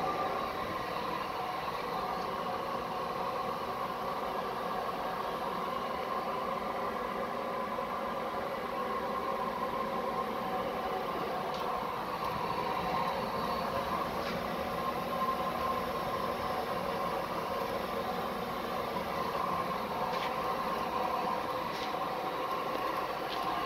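Oil-fired stove burning veggie oil, giving a steady rushing hum with a few held tones. A few faint ticks come in about halfway through and near the end.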